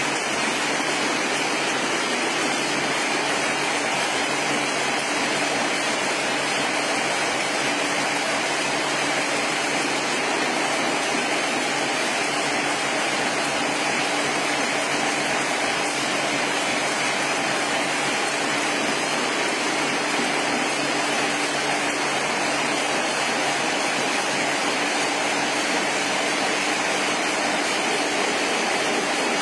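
Aerosol can vacuum leak testing machinery running continuously: a steady, loud hiss with a constant low hum underneath, unchanging throughout.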